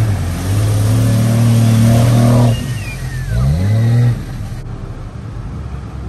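Jeep Cherokee XJ engine pulling hard under load as it drives out of a fast river, water splashing around the tyres; the revs fall away about two and a half seconds in, then climb once more. After about four seconds only the steady rush of the river water remains.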